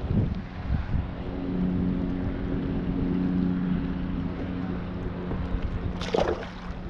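Wind buffeting the microphone with a steady low hum underneath, then a short splash about six seconds in as a small blackfish is tossed back into the water.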